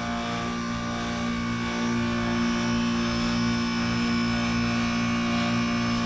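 2003 AirEase Concept 1000 heat pump outdoor unit running in its defrost cycle with the fan stopped: a steady low compressor hum with a faint hiss.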